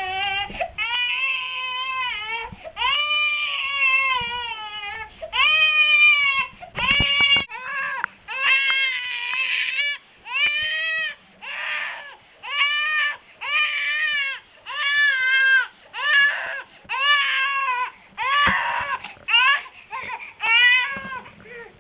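A baby crying in a long run of loud, repeated wails, each under a second long, with short breaths between them.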